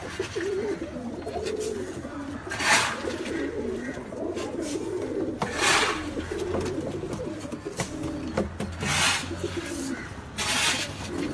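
Many domestic pigeons cooing at once, a steady overlapping cooing throughout. Four short, hiss-like noises stand out over it, a few seconds apart.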